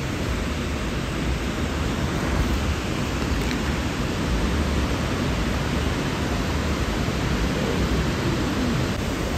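Fast-flowing mountain river, a steady loud rush of water with a deep rumble underneath.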